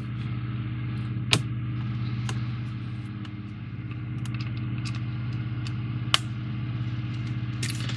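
Small clicks and taps of plastic model parts and light wiring being handled, with two sharper clicks, about a second in and about six seconds in, over a steady low hum.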